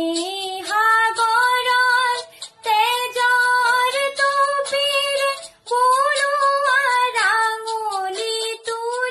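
A young girl singing solo in Assamese, in long held phrases with gliding ornaments, pausing briefly for breath about two and a half and five and a half seconds in.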